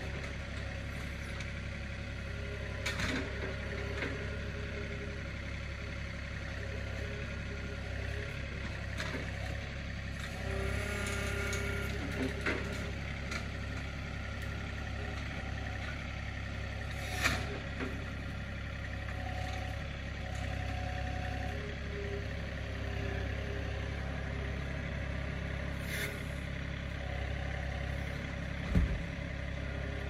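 John Deere 3032E compact tractor's three-cylinder diesel engine running steadily as it drives with the loader grapple. A few sharp clanks come through, and a heavier thump near the end is the loudest.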